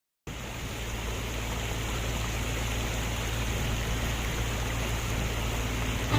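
Heavy machinery engine running steadily, a low hum under a broad steady hiss.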